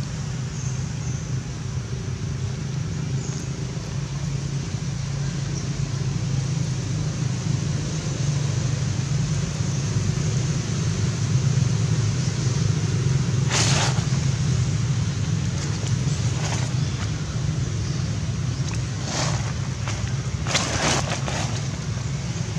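Low steady rumble of a motor vehicle's engine running nearby, growing louder towards the middle and then easing off. A few short crackles of dry leaves come in the second half.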